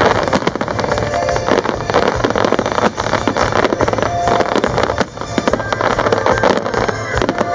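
Aerial fireworks display: many shells bursting together in a dense, continuous crackling and popping.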